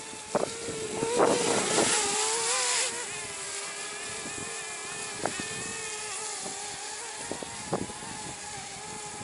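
Connex Falcore racing quadcopter's motors whining in flight, their pitch wavering up and down as the drone is pushed around by gusty wind. A rush of hiss fills the first three seconds, and there are a few sharp ticks.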